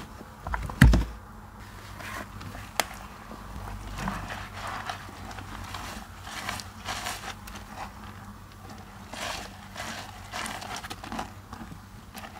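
Wet sponge squeezed and kneaded by rubber-gloved hands in mushy soap paste: irregular squelching and crackling of soapy foam. A dull thump about a second in is the loudest sound.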